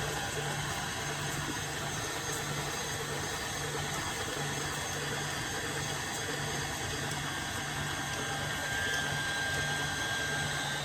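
Electric mixer running steadily, beating eggs and sugar together, with a slow regular pulse under its hum.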